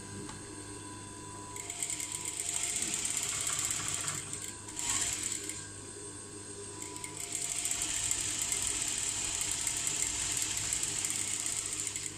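Sewing machine stitching a curved blouse seam in two runs, its rapid needle strokes starting about a second and a half in, pausing around five seconds in and running again from about seven seconds.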